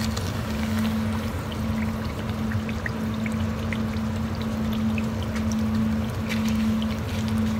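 Masa tortilla deep-frying in hot lard in a cast-iron pot, the fat bubbling and sizzling with scattered small pops. Under it a range hood fan runs with a steady rush and hum.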